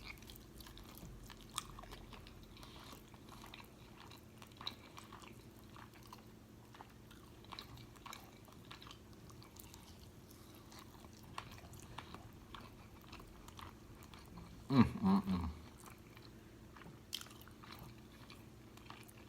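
A person chewing and biting food close to the microphone, with many small wet mouth clicks. About fifteen seconds in there is a short vocal sound from the eater.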